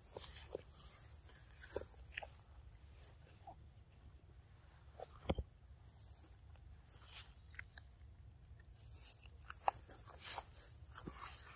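Faint small clicks and rustles of a young macaque handling and biting into a piece of fruit, with one sharper click about five seconds in. A thin steady high whine runs underneath.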